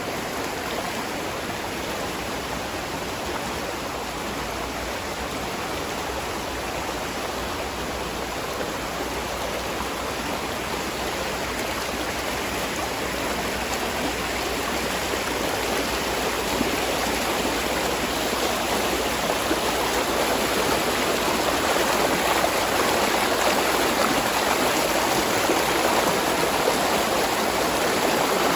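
Spring-fed stream water flowing and splashing over rocks in a steady, continuous rush, growing a little louder toward the end.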